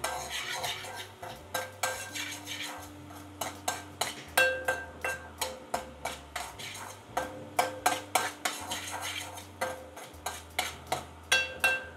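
A metal spoon stirring a tempering of green chillies frying in oil in a pan, its edge clicking and scraping against the pan a few times a second in an uneven rhythm.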